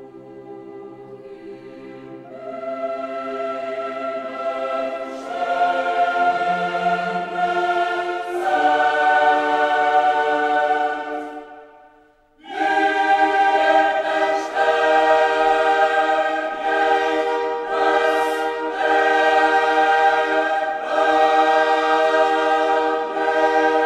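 Background music: a choir singing long held chords that swell in, break off briefly about halfway, and come back loud.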